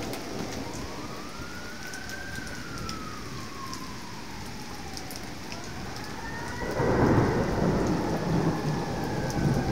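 Heavy rain and hail falling steadily with scattered sharp ticks, while an emergency siren wails, slowly rising and falling. About seven seconds in, a loud rumble of thunder rolls for a few seconds.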